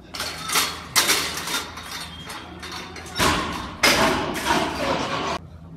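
Loaded barbell with bumper plates banging and clattering: about five sharp metallic impacts, each ringing on after it, then a sudden cut near the end.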